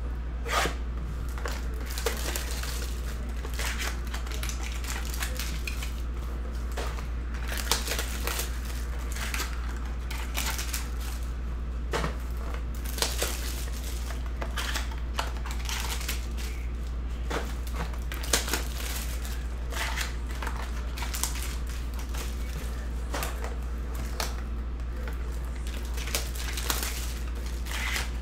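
Plastic shrink wrap crinkling and crackling as it is cut and peeled off sealed trading-card boxes, with scattered clicks of the cardboard boxes being handled, over a steady low hum.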